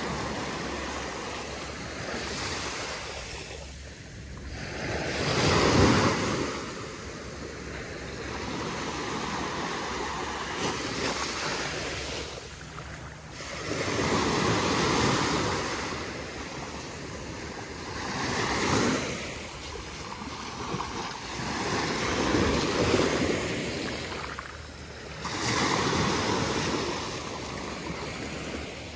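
Ocean surf washing onto the beach, swelling and fading every few seconds as each wave breaks.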